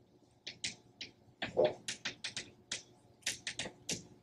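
Chalk writing on a blackboard: a quick, uneven run of sharp ticks and short scratches, about four a second, as each stroke of a letter hits the board.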